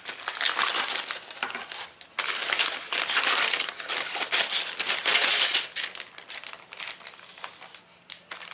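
Rustling and crinkling from packaging or bags being handled, with many small clicks and rattles, loudest in the middle.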